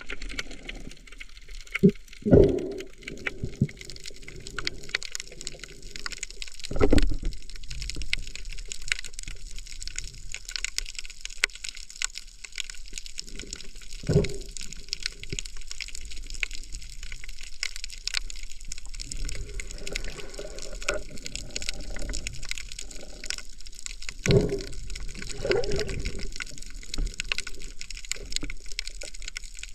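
Underwater ambience picked up by a camera housing just below the surface: a steady hiss with dense crackling, and a handful of louder swishes of water moving past the housing.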